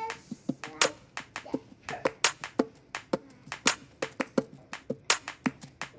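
Irregular sharp clicks and taps, several a second, as of hands handling small hard objects.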